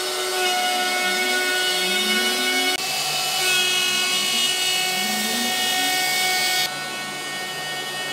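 Inventables X-Carve CNC machine routing holes in a clamped board: the DeWalt router's steady high whine and the dust extractor running together, with a lower pitch sweeping up and down again and again as the machine moves through each cut.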